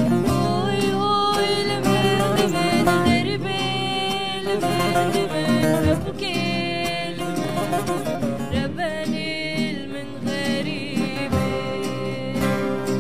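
A woman singing a sad Kurdish song in ornamented, wavering lines, accompanied by a plucked saz (long-necked lute) and an acoustic guitar.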